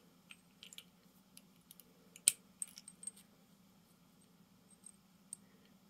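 Small brass parts of a propane tank's OPD valve assembly clicking and tapping against each other as they are handled, a scatter of light metallic ticks with one sharper click about two seconds in.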